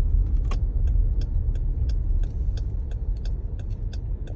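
Low, steady road and engine rumble inside the cabin of a 2019 Jeep Grand Cherokee driving on snowy roads. Over it, a regular clicking about three times a second, the turn signal ticking.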